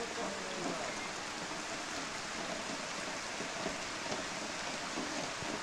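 Steady rain falling on waterlogged, puddled ground, an even hiss.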